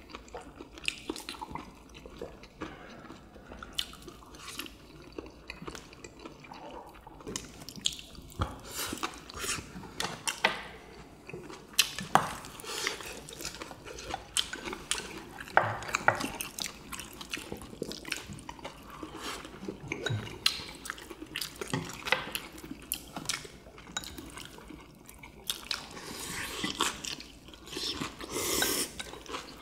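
Chopsticks clicking and tapping against ceramic bowls and plates, with chewing between the clicks. Near the end comes a longer hissing slurp from a bowl.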